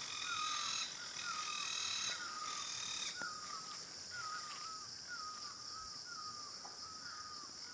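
A bird repeating a short, falling call over and over, about twice a second, over a steady high-pitched insect drone.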